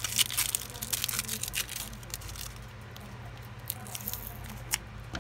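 Clear plastic packing tape and paper wrapping crinkling and crackling as fingernails pick at a tightly taped small parcel, with irregular crackles that are busiest in the first two seconds and sparser after.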